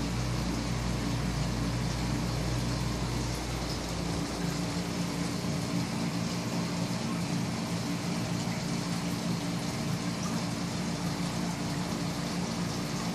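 Aquarium filter and pump running: a steady hum with a watery hiss over it. The deep low rumble under the hum drops away about four seconds in, and the hum shifts pitch.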